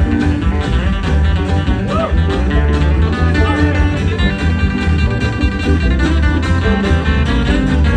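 Acoustic string band playing an instrumental break in a country-bluegrass song: plucked string picking over a steady bass line, with a few bent notes.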